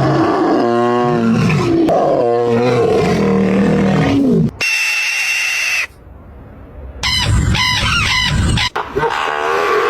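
A run of different animal calls, cut one after another. First comes a long wavering pitched call, then a steady high tone for about a second. After a short quieter gap there is a fast repeating call, and another pitched call follows near the end.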